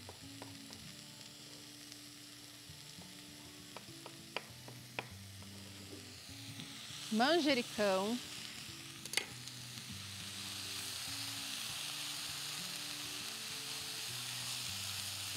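Diced carrot, zucchini and tomato sautéing in a saucepan, sizzling as they are stirred; the sizzle grows louder and steadier about ten seconds in. Before that, a few sharp knife taps on a wooden cutting board.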